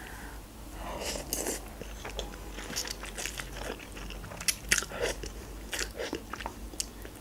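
Close-up eating sounds: a person chewing and slurping soft instant noodles, with scattered wet mouth clicks.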